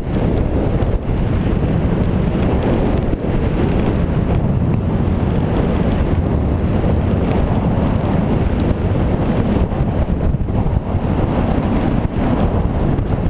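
Wind rushing and buffeting the camera's microphone during a fast downhill ski or snowboard run, a steady, heavy low rumble.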